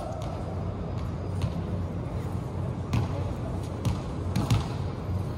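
Volleyball being hit and bouncing on the court, echoing in a large covered hall: several sharp thuds spread through, over a steady low hum and faint distant voices.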